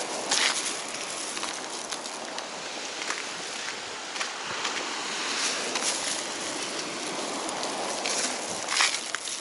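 Steady hiss of small waves washing onto a pebble shore, with a couple of footsteps scuffing on concrete near the start and near the end.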